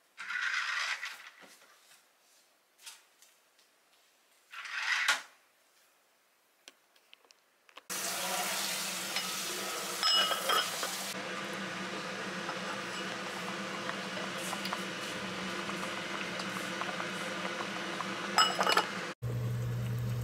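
Dishes and utensils clinking and clattering in a few separate bursts, then a steady hiss with a low hum and occasional clinks from about eight seconds in.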